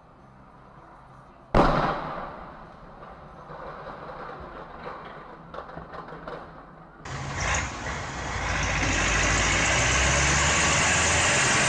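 A sudden loud bang about a second and a half in, fading over the next few seconds. From about seven seconds in, the diesel engine of a large Kirovets articulated wheeled tractor runs steadily, with street noise.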